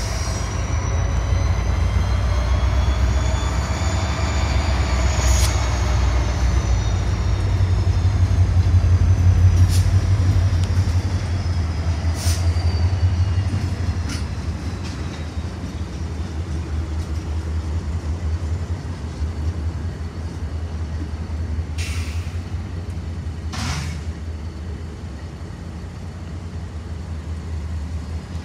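Freight train of covered hopper cars rolling slowly past with a steady low rumble. A sharp clank comes every few seconds, and a high whine rises and falls in pitch over the first several seconds.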